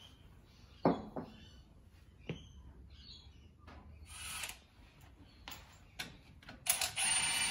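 Scattered clicks and knocks of metal parts being handled, then near the end a loud rasping noise lasting under a second as a socket wrench goes to work on a Land Cruiser's front axle spindle.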